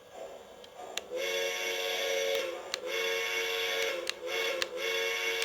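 Electronic steam whistle from the sound system of a Lionel O-scale 0-8-0 toy steam locomotive, blown in four blasts: two long ones of about a second each, then two shorter ones. A sharp click comes just before each of the first two blasts.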